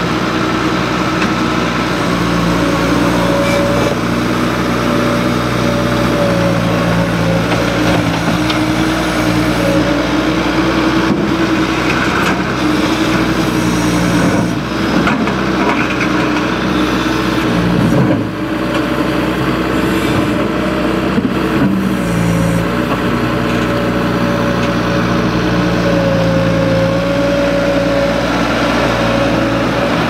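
Bobcat S185 skid-steer loader's four-cylinder diesel engine running loudly, its note shifting up and down as the loader drives and works. A brief knock comes about eighteen seconds in.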